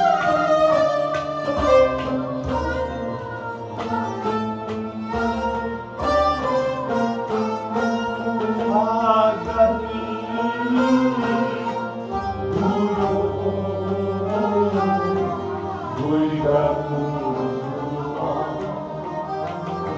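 Kashmiri Sufiyana music: a harmonium and bowed fiddles play a melody over hand strokes on a clay pot drum, with a voice singing along.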